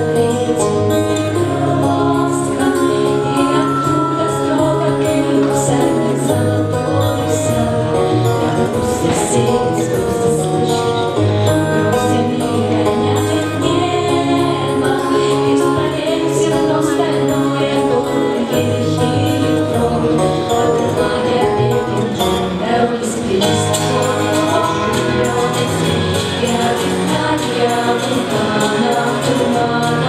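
Teenage girls' vocal ensemble singing together in harmony into microphones over an instrumental backing with a steady bass line and light jingling percussion.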